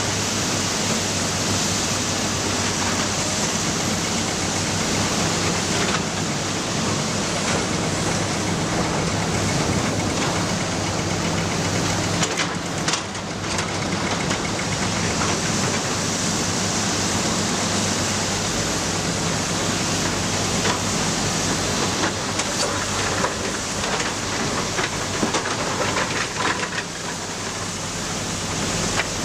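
Matador ME315 excavator's diesel engine running steadily under load, with a few scattered knocks about midway and again near the end.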